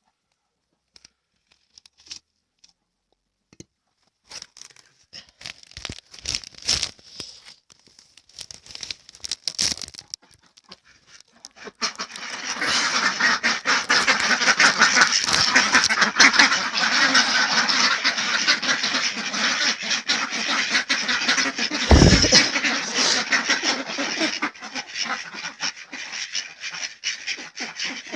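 Ducks feeding, their bills clattering in quick, crackly pecks, sparse at first and then dense from about 12 s in, with quacking. A single low thump about two-thirds of the way through.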